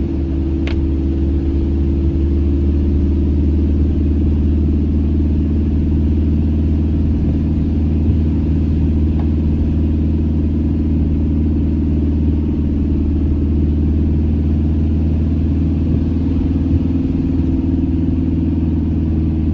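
Campervan engine and road noise heard inside the cab while driving: a steady low drone that holds even.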